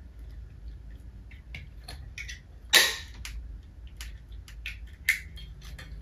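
Plastic plug connectors and wires of a ceiling fan's motor and light module being handled and pushed together: scattered light clicks and rustles, with a sharper click about three seconds in and another about five seconds in.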